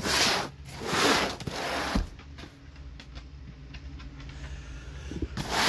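Cardboard box being handled and turned over: scraping and rustling in bursts, with a knock about two seconds in, small clicks, and another rustle near the end, over a steady low electrical hum.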